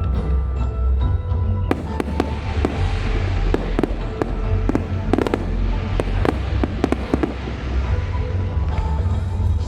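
Fireworks display bursting: many sharp cracks and pops over a continuous low rumble of booms, with music playing underneath.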